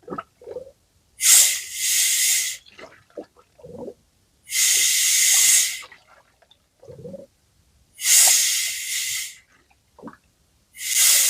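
Compressed air at about 1.5 bar hissing in four short bursts of about a second each, pressed in slowly to push trapped air out of an EA288 2.0 TDI engine's coolant system.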